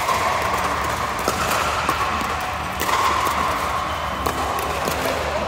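Pickleball paddles striking the ball in a rally: sharp pops about every second and a half, over a steady background din.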